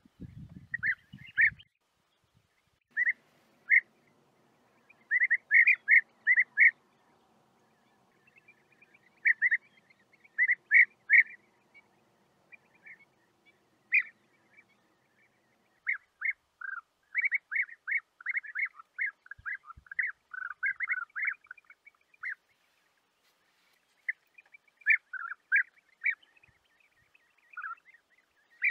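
European bee-eaters calling: short, clipped notes, singly and in quick bunches with pauses of a second or two, and a long busy run of calls a little past the middle.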